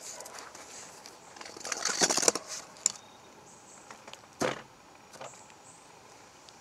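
Packaging being handled while fishing gear is taken out of a cardboard shipping tube: a burst of crinkling and rustling about two seconds in, then a single knock a little past halfway.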